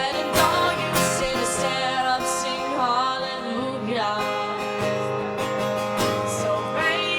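A woman singing long, gliding wordless notes over acoustic guitar: a pop-rock song performed by voice and guitar.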